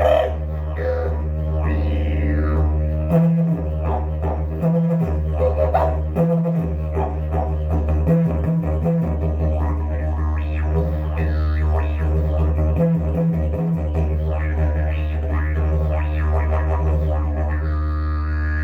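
Agave slide didgeridoo played in its short configuration, tuned to about D: a continuous low drone with shifting, wah-like overtones. Short higher horn notes break the drone several times, mostly in the middle stretch.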